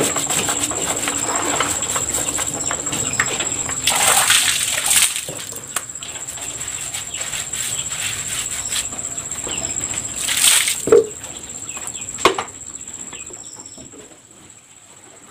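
Wet cloth scrubbing and wiping the metal housing and pulley of a soybean grinder, with water splashing and dripping. There are louder rushes of wiping and splashing about four seconds in and again around ten seconds, a sharp knock just after, and then it quietens near the end. A faint steady high whine sits underneath.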